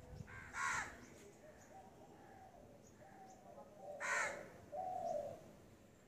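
A crow cawing: two short harsh caws, one just after the start and one about four seconds in, the second followed by a lower call.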